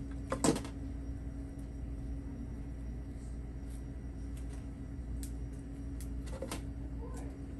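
Quiet handling of leafy florist greens and stems in a foam centerpiece: a few soft clicks and rustles, the loudest a short knock about half a second in, over a steady low hum.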